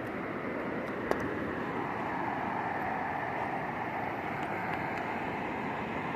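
Steady rush of flowing river water, with a single light click about a second in.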